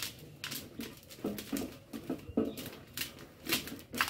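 Damp cassava mash rubbed by hand across a wooden-framed mesh sieve: a rhythmic scraping, about two to three strokes a second, as the mash is sieved before frying into garri.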